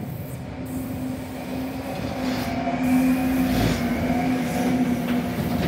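DB class 152 electric locomotive passing close with a freight train of tank wagons: a steady hum over the rolling rumble of wheels on rail, getting louder about two seconds in as the locomotive and the first tank wagons go by.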